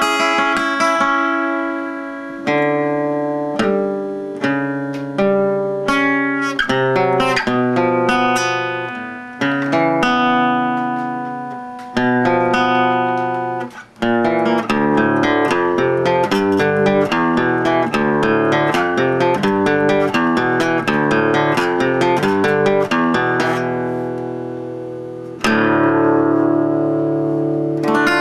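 Solo guitar music, plucked notes and chords ringing out and fading, with a brief drop about halfway and a busier run of quick notes after it.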